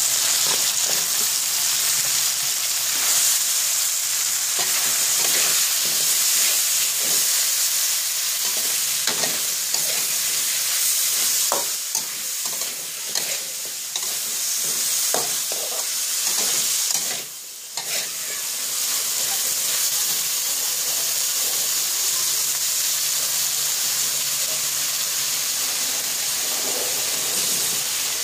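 Stir-frying in a steel wok: long beans, tomato and chilli sizzling steadily in hot oil with fish, with a spatula scraping and knocking against the wok through the middle and a brief lull about 17 seconds in.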